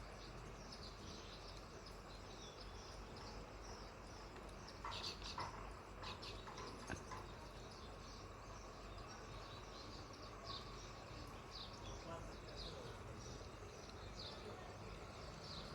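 House sparrows chirping over and over, faint, with a brief run of louder chirps about five seconds in.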